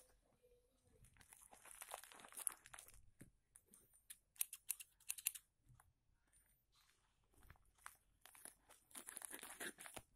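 Faint crinkling and crackling of a plastic courier mailer bag being handled and squeezed, in several spells with a short lull about two-thirds of the way through.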